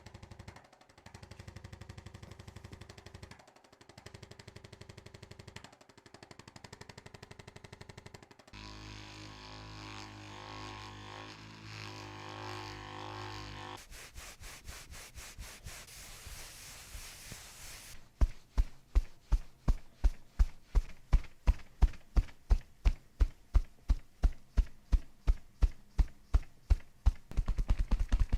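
A small motorized device buzzing, then a long run of sharp, even mechanical taps about three a second over the last ten seconds.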